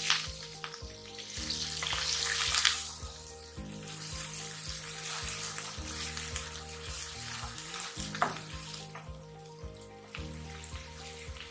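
Chopped onions sizzling in hot oil in a nonstick wok as they are stirred with a wooden spatula, over background music. The sizzle is loudest in the first three seconds, then settles lower, with a sharp click about eight seconds in.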